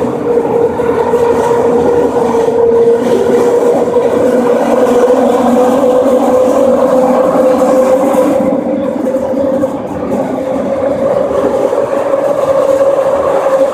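Vancouver SkyTrain linear-induction-motor car running at speed, heard from inside the car: a steady rumble with a whine that climbs slowly in pitch as the train gathers speed.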